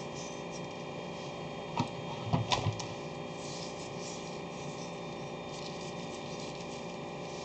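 Steady electrical hum with a few light clicks and knocks about two seconds in, from handling things while seasoning on the kitchen counter.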